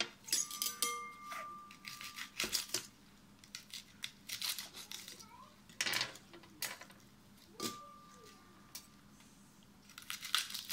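Lettuce leaves being torn apart by hand: crisp tearing and crinkling in irregular bursts, with a knife cutting through leaves against the stone counter near the end.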